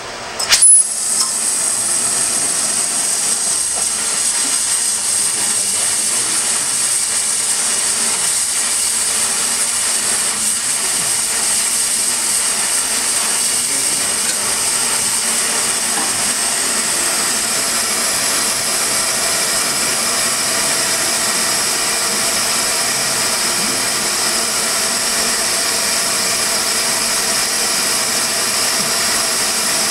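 Oxy-fuel torch flame hissing steadily while it heats a small steel part for case hardening, with a sharp pop about half a second in as the flame comes up to full.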